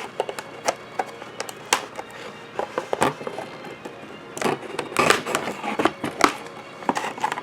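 Plastic toy packaging crinkling and clicking in irregular bursts as an action figure is tugged and worked free of its packaging, busiest about four to five seconds in.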